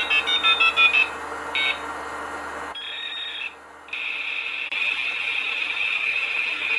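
A steady high-pitched electronic tone with a quick run of short beeps of different pitches in the first second. The tone drops out briefly about three and a half seconds in, then carries on.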